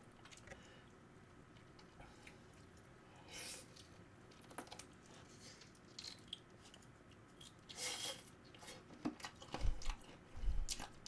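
Close-miked chewing and biting of sauced fried chicken, with wet, squishy mouth sounds and small crunches, two louder bites about a third and three quarters of the way in. A couple of low thuds come near the end.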